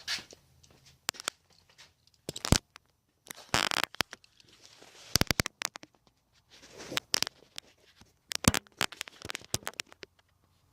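Irregular clicks and short scrapes of a Torx screwdriver working at the small retaining screw inside a truck door handle, metal tapping and rubbing against metal and plastic.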